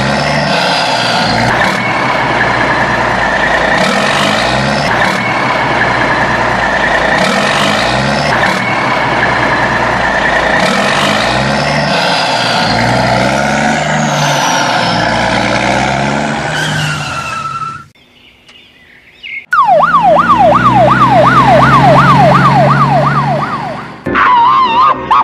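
Dubbed-in vehicle sound effects: a busy engine-and-traffic track that repeats about every three and a half seconds. After a short drop about eighteen seconds in, an electronic yelp siren rises and falls quickly, about two to three times a second.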